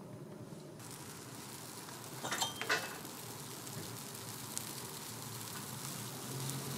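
Bungeoppang batter sizzling in hot fish-shaped bread molds, a steady hiss, with a couple of sharp clicks about two and a half seconds in.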